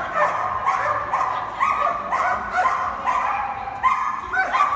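Dog barking excitedly and repeatedly, high-pitched yips about two a second, while running an agility course.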